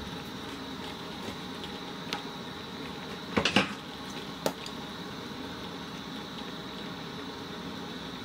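A pot of seafood broth at a full rolling boil, bubbling steadily under a thick head of foam that is being skimmed off. A few sharp knocks of a utensil on the pot cut through it, the loudest a quick cluster of three about three and a half seconds in.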